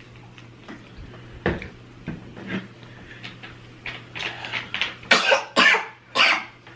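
A person coughing: a run of short, harsh coughs in the second half, the three loudest close together near the end, after a few scattered light clicks and knocks.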